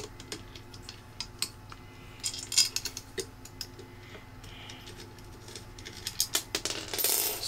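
Small metal clicks and rattles of an Allen key turning M3 screws out of a 3D-printed plastic fan mount, with light knocks as the fan is handled. The clicks come irregularly, bunched about two and a half seconds in and more densely near the end.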